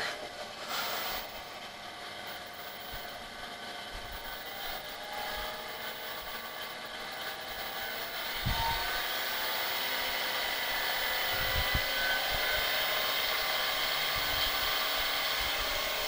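Rebuilt vintage Easy Washing Machine Company electric fan running: an airy whir with a faint motor whine that slowly rises in pitch and gets louder as the speed control is turned up toward the top speed before the supply cuts out. A couple of soft low thumps around the middle.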